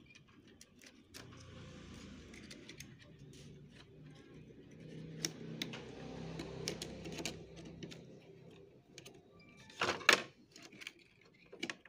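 Small plastic clicks and rattles as ribbon cables, ink tubes and a connector board are handled around the printhead carriage of a Brother MFC-J3530DW inkjet printer. A cluster of louder clatter comes about ten seconds in, and a low steady hum runs through the middle.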